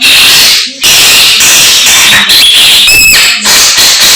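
Samyong songbird singing loudly and harshly, in dense scratchy phrases with a short clear pitched note about three seconds in.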